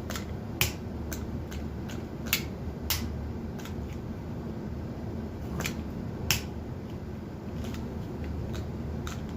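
Sharp plastic clicks and snaps from a toy Nerf blaster being handled, cocked and dry-fired, coming singly at uneven intervals about a dozen times.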